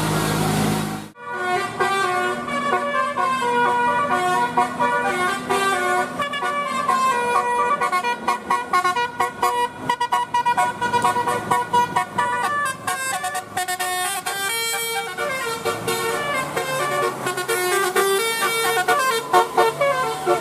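Bus 'telolet' musical horn playing a fast tune of many short, steady notes that step up and down in pitch. It starts suddenly about a second in.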